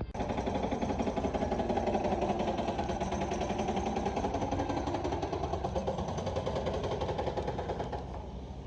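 A motor vehicle's engine running steadily with a fast, even pulsing, dropping in level near the end.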